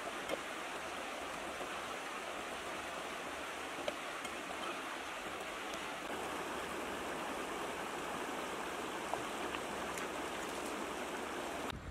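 A shallow rocky stream running and babbling steadily, with a few light knocks along the way.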